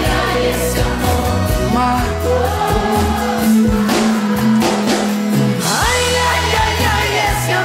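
Live sertanejo song: sung vocals with backing singers over a band of acoustic guitars, accordion, bass and drums.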